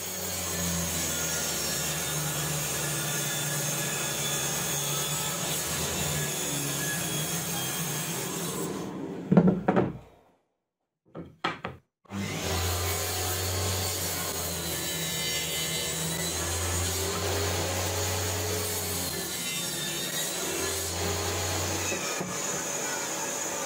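Homemade table saw running and cutting plywood: a steady motor hum with blade noise. It stops about ten seconds in with a loud knock, and starts again two seconds later.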